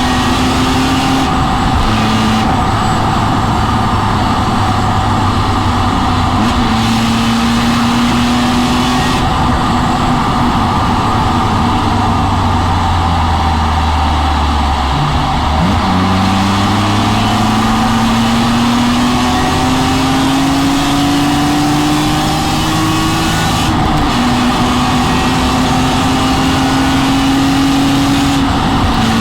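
BMW E46 M3's 3.2-litre straight-six heard from inside the car at speed, its pitch climbing slowly under load and breaking off with gear changes about four times. A steady rush of road and wind noise runs underneath.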